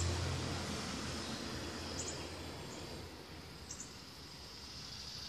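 Outdoor garden ambience: a steady wash of background noise with a low hum that fades out in the first second, and a few short, high bird chirps about two and four seconds in.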